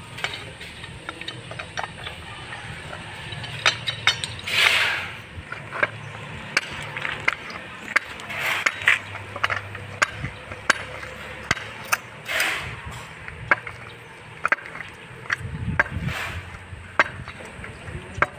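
Pipe wrench gripping and turning a galvanized steel pipe fitting: repeated sharp metal clicks and clinks, with a short rasping scrape about every four seconds as the wrench is worked on the pipe.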